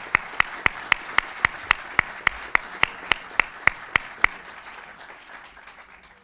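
Audience applauding, with one clapper standing out in loud, even claps about four a second. The loud clapping stops about four seconds in and the applause fades away.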